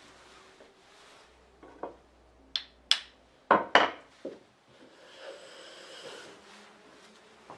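Japanese wooden plane being worked on: about six sharp knocks of wood and metal in quick succession, the loudest two close together, then a short rubbing sound.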